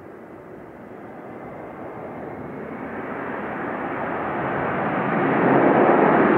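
Airbus A400M Atlas's four Europrop TP400-D6 turboprop engines at high power as the aircraft climbs out after a touch-and-go, a rushing drone that swells steadily louder as it approaches and is loudest near the end.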